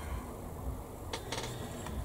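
A few light clicks and taps of small handling noises at a workbench, clustered from about a second in, over a low steady hum.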